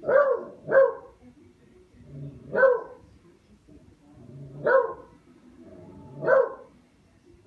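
Dog barking at a katydid it is playing with: five short barks, a quick pair at the start and then three single barks about two seconds apart.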